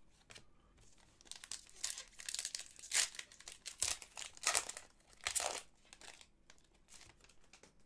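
Wrapper of a hockey trading-card pack being torn open and crinkled: irregular crackling and rustling that starts about a second in and runs for several seconds.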